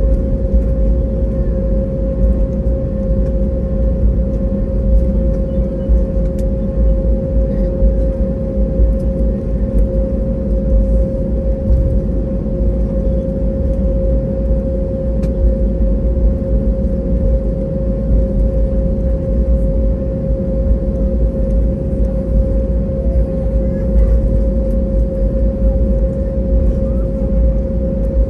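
Cabin noise inside an Airbus A320neo: a steady low rumble with a constant mid-pitched hum above it.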